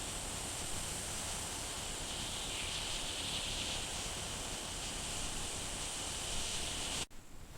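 Steady outdoor ambient hiss, like wind and rustling, that cuts off suddenly about seven seconds in.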